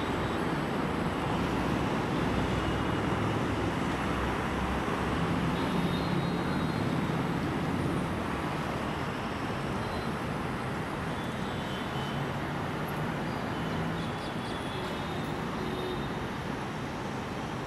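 Steady city road traffic noise, a constant wash of passing vehicles, easing slightly about halfway through.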